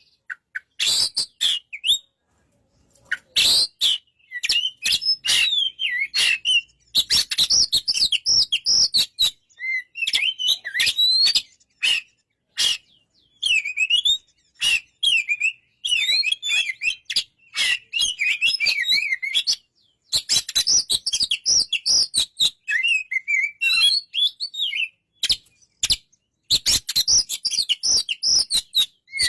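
Oriental magpie-robin singing: phrases of fast, varied warbling and sharp clicking notes, broken by short pauses.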